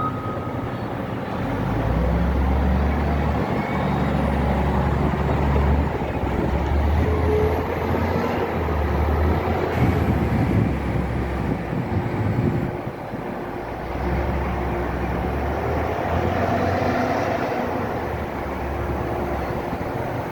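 Caterpillar 950L wheel loader's diesel engine working under load, its revs surging up and easing off repeatedly, with a short lull about two-thirds of the way through.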